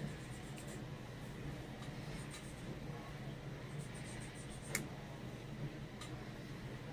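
Faint rustling and scratching of pajama fabric as a needle and thread are drawn through it in hand backstitching, with one small sharp click about two-thirds of the way in.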